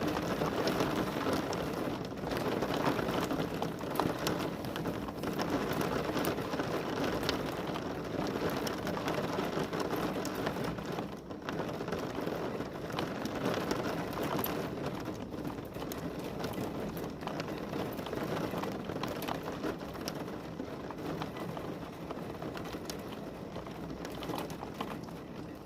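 Heavy rain falling: a dense, steady wash of noise with many separate drop hits, easing slightly toward the end.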